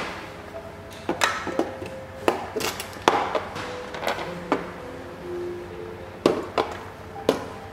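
Cordless hair clippers knocking and clattering against a hard plastic tool tray as they are handled and lifted out, a series of sharp, irregular knocks with no motor running. Soft background music plays underneath.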